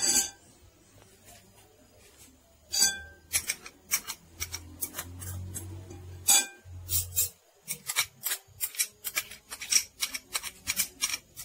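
A metal fork tapping and scraping against a bowl as tofu mixed with ground shallot and garlic is mashed and stirred, in quick irregular clinks that grow busier near the end.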